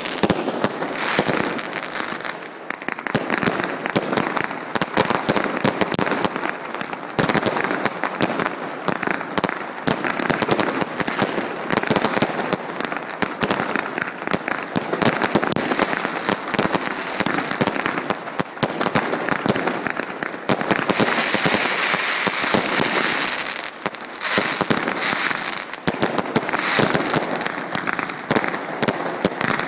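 Professional fireworks display: a dense, continuous barrage of shell bangs and crackling, with an especially thick burst of high-pitched crackle about three quarters of the way through.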